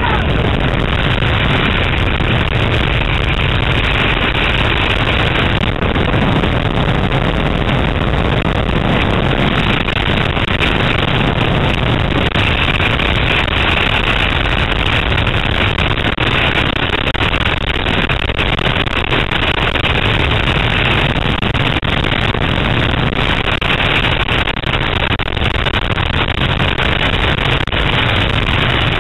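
Loud, steady rush of freefall wind buffeting a helmet camera's microphone.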